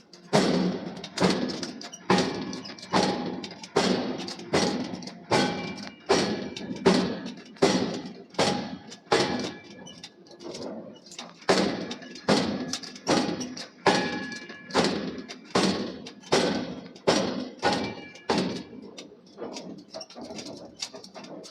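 Forging hammer repeatedly striking a hot steel billet, about two blows a second, each blow a sharp metallic strike with a short ring, easing off near the end.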